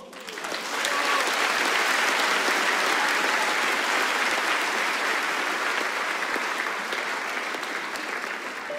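Large concert audience applauding: the clapping swells up within the first second and then goes on steadily.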